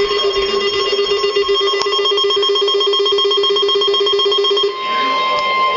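Emergency Alert System alert tones: a buzzing, ringing electronic tone, then a single steady higher tone about 4.8 seconds in, marking the start of a second severe thunderstorm warning that interrupts the first.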